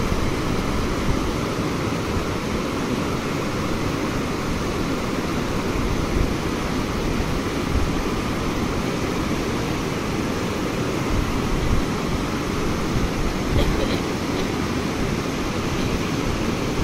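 Steady rushing of river water, with wind buffeting the microphone as an uneven low rumble.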